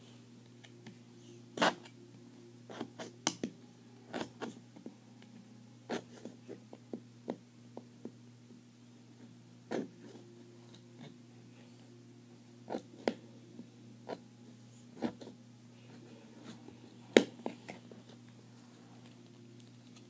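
Scattered sharp clicks and snaps of small plastic parts being handled and cut, the loudest about two seconds in and near the end, over a steady low electrical hum.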